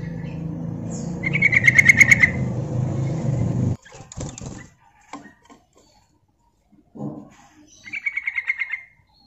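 Yellow-vented bulbul giving a rapid chattering call of about ten notes a second, twice: about a second in and near the end. Wing flutters and light knocks from the bird moving about its cage follow about four seconds in and again around seven seconds, over a low steady hum that cuts off abruptly.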